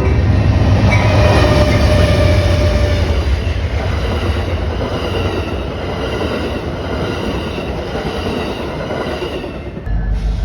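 Passenger train passing close at speed: a loud, steady rumble of wheels on rail with a faint squeal of the wheels. The sound changes abruptly near the end.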